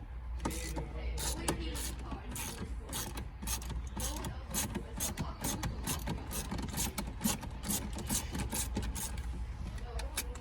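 Ratchet tool clicking rapidly and steadily, about four clicks a second, as the bolts holding a car's infotainment unit are backed out, over a low steady hum.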